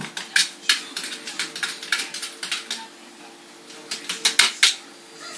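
Cat's paw and claws tapping and scrabbling against a round glass-like fish tank: quick, irregular sharp taps in a flurry through the first three seconds and a second burst about four seconds in, over a faint steady hum.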